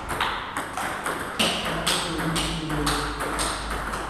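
Table tennis rally: the ball clicking off the rubber-faced bats and bouncing on the table, two or three sharp hits a second.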